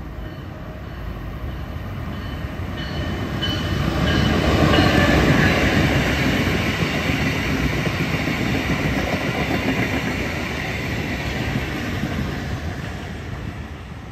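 Brightline passenger train passing at reduced speed, with a Siemens Charger diesel-electric locomotive and coaches. Its rumble and wheel noise build to a peak about five seconds in, hold, then fade near the end, with a few thin high tones early on as it approaches.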